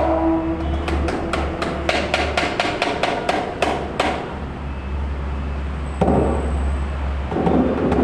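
Traditional mosque drumming before the call to prayer: a wooden drum struck in a quick run of sharp knocks that come closer together through the middle, followed from about six seconds in by a duller beating. It signals that the time for prayer has come.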